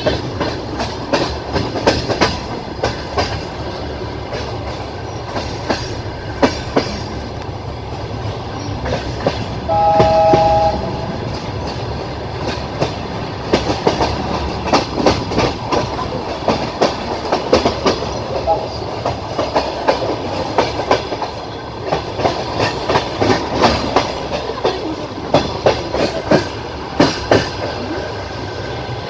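Passenger train running, its wheels clicking over rail joints, heard from inside a carriage. About a third of the way through, a train horn sounds once briefly, two steady tones together.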